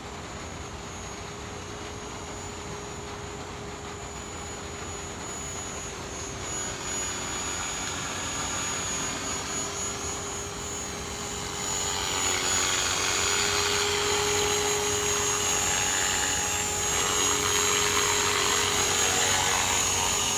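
Thunder Tiger Mini Titan 450 electric RC helicopter flying, a steady hum of rotor and motor with a high whine. It grows louder as the helicopter comes in close, with a clear jump in level a little past halfway.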